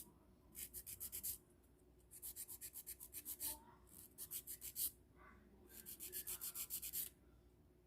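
Hand nail file rasping back and forth on a gel-coated fingernail in quick short strokes, in four runs of about a second each with brief pauses between.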